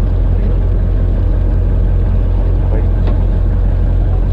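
A fishing boat's engine running steadily, a deep constant hum.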